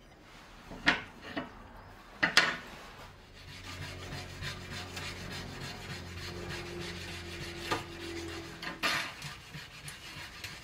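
Rubberized Cratex abrasive stick scrubbing back and forth along a brass strip, a steady rasping rub that dresses the metal's surface. A few sharp knocks come in the first couple of seconds and another near the end.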